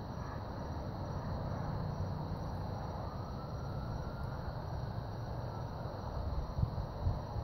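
Distant rumble of an Atlas V rocket in ascent, a steady low noise heaviest in the bass, with a couple of brief low thumps near the end.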